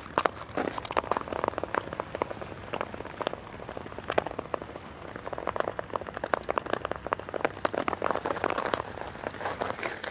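Ice skate blades gliding and scraping over clear natural harbor ice, with a fast, irregular crackle of small clicks over a steady hiss.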